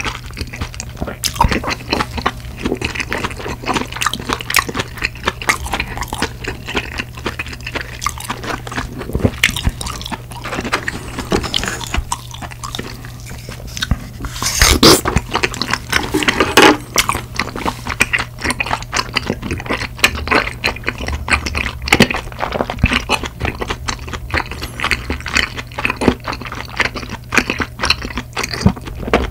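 Close-miked wet chewing and lip smacking of chewy rice cakes in sauce, a steady run of small irregular clicks. About halfway there is a louder burst as a fresh spoonful of tteokbokki goes into the mouth.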